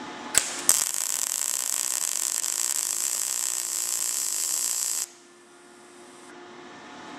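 MIG welder arc running a bead on thin steel sheet, with the wire speed just turned up: a couple of sharp pops as the arc strikes under a second in, then a steady crackling hiss that stops suddenly about five seconds in. The even arc laid what is called quite a reasonable looking weld.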